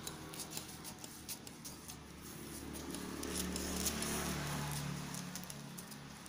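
Scissors cutting through a kraft-paper sewing pattern: an irregular run of snips and paper crackle.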